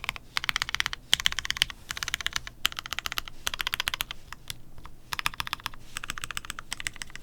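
Mechanical keyboard with Gateron Black Ink linear switches on a foam-dampened polycarbonate plate, typed on in quick runs of keystrokes broken by short pauses.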